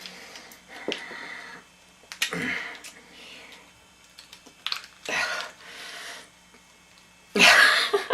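Plastic pieces of a cheap Rubik's cube cracking, creaking and clicking as the cube is squeezed and crushed by hand, in irregular bursts, with a louder burst near the end.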